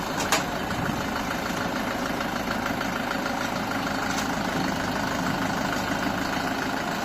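Four-wheel-drive tractor's diesel engine running steadily at low speed as the tractor creeps down the loading ramp.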